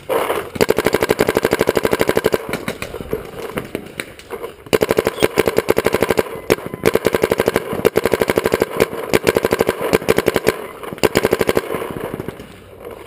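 Proto Reflex Rail paintball marker firing rapid strings of shots, many a second, with short breaks between strings, tailing off near the end.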